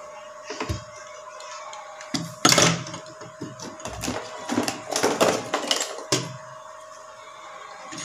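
Hands handling wires and a small plastic universal power-supply module on a wooden workbench: a few scattered knocks and rustles, most of them in the middle seconds.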